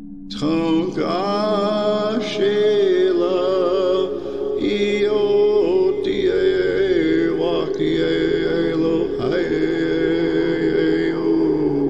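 A voice chanting in long, wavering held notes in phrases over a steady low musical drone.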